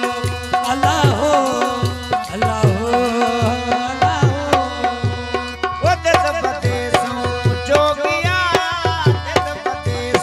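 Live South Asian folk music: a hand drum plays a quick, steady beat, its deep bass strokes sliding down in pitch, under a melodic line that wavers with vibrato about eight seconds in.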